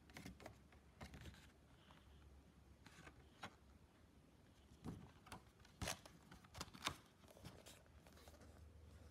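Faint handling noise: scattered clicks and rustles of packaging being handled, with a few sharper clicks around six to seven seconds in.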